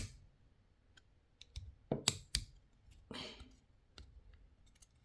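Small metal parts of an airsoft pistol clicking and tapping as a pin is pushed back into the frame against a spring-loaded plate. A sharp click comes right at the start, then a few more about two seconds in, with a brief soft rustle around three seconds in.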